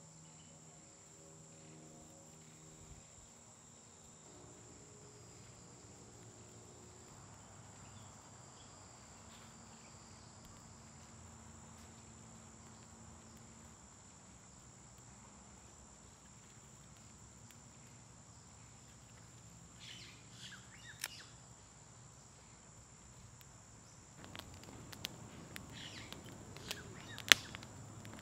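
A small campfire of twigs and split wood crackling, with scattered pops from about twenty seconds in that grow denser near the end and one sharp loud pop, over a steady high chirring of insects.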